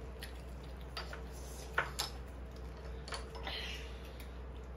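A few sparse, light clicks and taps of chopsticks against dishes and a sectioned food tray at a meal table, about one every second.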